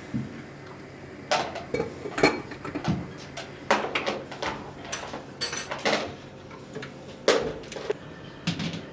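Kitchen clatter of dishes and utensils: a string of separate knocks and clinks, some ringing briefly, with a short scrape about five and a half seconds in.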